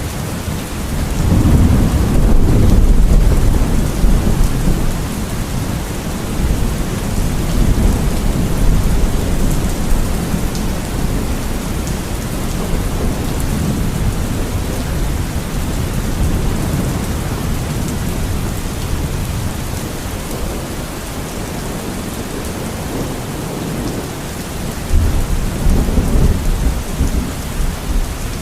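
Steady rain falling, with low thunder rumbling over it: a long roll swelling a second or so in and fading over a few seconds, and another shorter rumble near the end.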